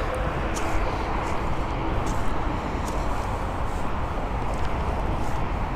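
Steady traffic noise from the freeway below, an even rush of tyres and engines with no single vehicle standing out.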